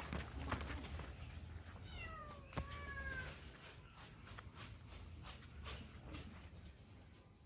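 Kitten meowing twice, about two and three seconds in, each call falling in pitch, with a sharp click between them and faint clicking and rustling throughout.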